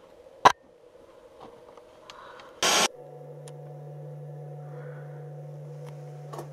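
A sharp knock about half a second in and a short loud burst of noise near the middle, then a low steady drone with a few held tones sets in: the start of a background music bed.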